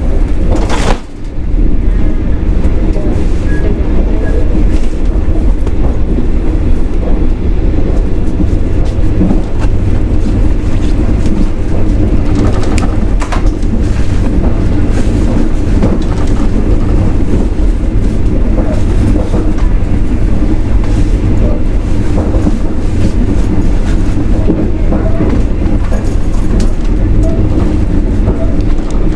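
A CNR sleeper train moving along the track: a loud, steady rumble and rattle of the running train. The sound briefly drops out about a second in.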